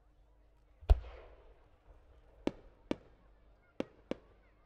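Aerial firework shell: one deep boom about a second in, followed by four sharp cracks over the next couple of seconds.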